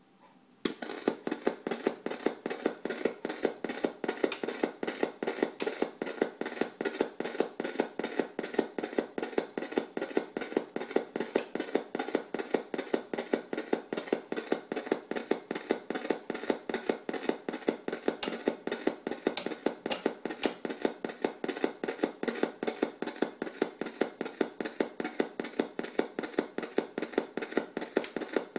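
The Ostsillyamat, a homemade square-wave oscillator synthesizer, clicking through its own small speaker: a steady, even train of sharp clicks, several a second, from a low-rate square wave. It starts just under a second in.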